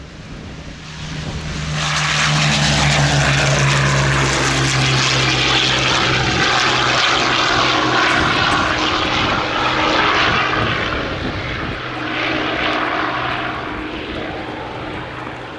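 A Hawker Sea Hurricane's Rolls-Royce Merlin V12 engine and propeller make a flypast. The engine note swells over the first two seconds, holds loud while dropping a little in pitch as the aircraft passes, then fades with a brief second swell near the end.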